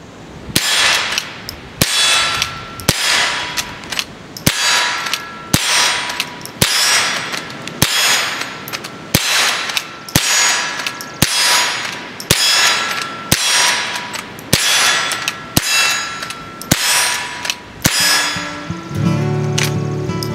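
Chiappa LA322 Kodiak Cub .22 Long Rifle lever-action rifle fired steadily about once a second, some seventeen shots in a row, each followed by a short metallic ring. Acoustic guitar music fades in near the end.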